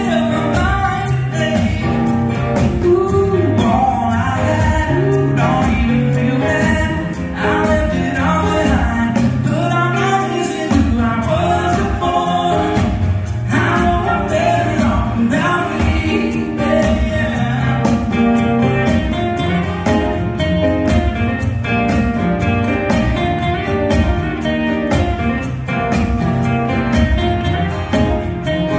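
Live acoustic band: several acoustic guitars strumming under a male lead vocal.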